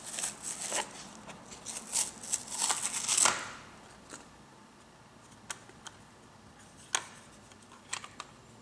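Adhesive pad being peeled off the bottom of a metal lamp base: scratchy tearing and rustling for about three seconds. Then a few light clicks and taps as the cover disc beneath is handled.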